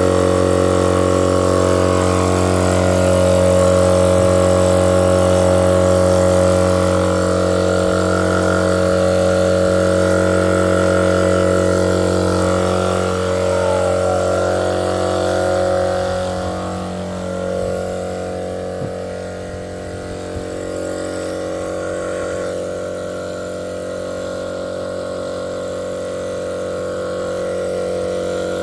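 Homemade 12-volt twin air compressor running steadily under load, fed from a 15-volt lithium-ion jump pack while airing up four tires. The hum stays even, easing off a little in level about two-thirds of the way through.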